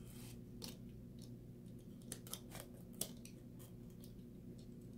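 A utility knife blade scratching and clicking as it slits the plastic shrink-wrap on a small cardboard box: faint, scattered short scratches and crackles, the sharpest about three seconds in.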